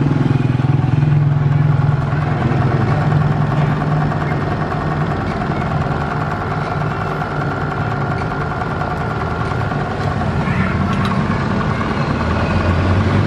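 A steady, low mechanical drone that holds one pitch without change, like a motor or engine running.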